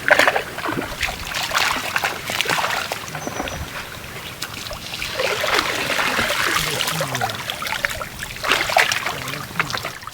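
Water splashing and sloshing in many irregular strokes, with a longer stretch of steadier splashing about halfway through.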